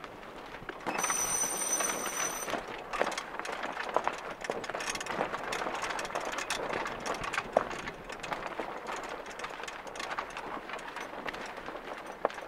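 Wind and water noise aboard a small sailing yacht under way, with frequent irregular clicks and knocks. A thin high-pitched tone sounds for about a second and a half about a second in.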